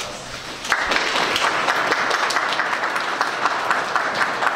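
A group of people applauding, starting about a second in and going on steadily.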